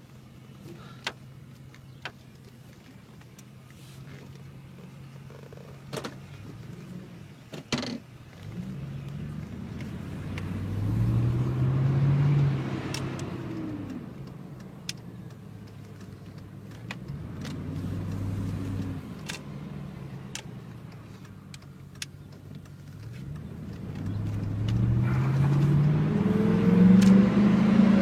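Pickup truck engine idling, then pulling away three times, its pitch rising and falling off each time, with scattered light clicks.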